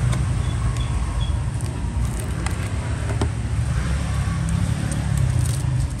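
Steady low rumble of road traffic, with a few faint clicks and taps here and there.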